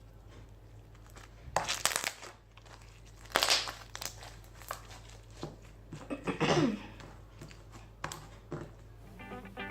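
Homemade slime being squished and handled by hand: irregular sticky crackles and clicks in a few bursts, the loudest about two and three and a half seconds in.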